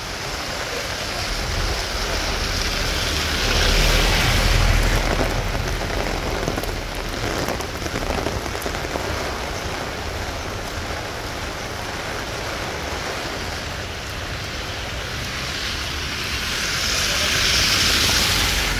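Heavy rain falling steadily on a wet street, a continuous hiss. It swells twice, about four seconds in with a low rumble underneath, and again near the end.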